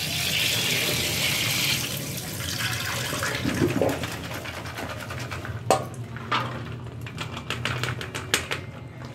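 Tap water running onto chopped green beans in a plastic colander at a stainless-steel sink, easing off after about two seconds. Then a few sharp knocks and small rattling clicks as the wet beans are shaken and tipped from the colander into a steel bowl near the end.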